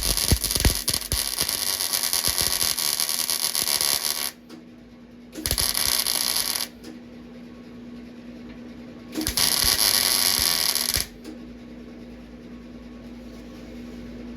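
Welder's arc crackling in three bursts of about four and a half, one and a half, and two seconds: rosette (plug) welds being laid on car body sheet metal. One of them did not penetrate enough and let the part move.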